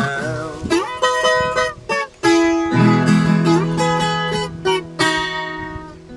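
Instrumental break in a sertanejo song: acoustic plucked strings picking a melody, with lower held bass notes under it through the middle.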